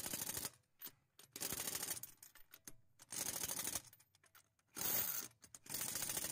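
Pneumatic impact wrench tightening wheel lug nuts, hammering in five short bursts of rapid rattling, one after another with short pauses.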